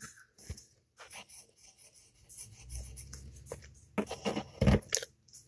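Pencil scratching on a folded sticky note in short, faint strokes, drawing eyes and a mouth, with a few louder knocks about four seconds in.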